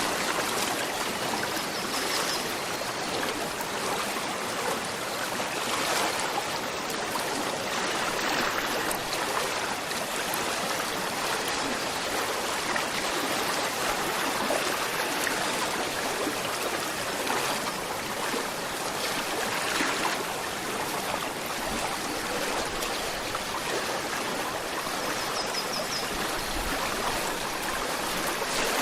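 A gentle river flowing steadily, its water rushing and babbling without a break.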